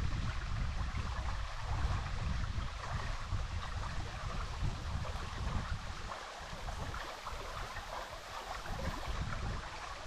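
Shallow, clear stream babbling as it runs over a stone bed and a small riffle, a steady rush of water. An uneven low rumble comes and goes underneath and eases off about six seconds in.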